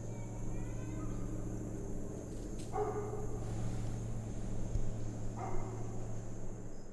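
A dog barking twice, a few seconds apart, over a steady low hum.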